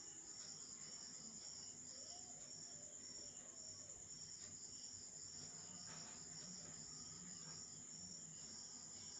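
Insects chirping: a steady, faint, high-pitched trill with a pulsing chirp about twice a second.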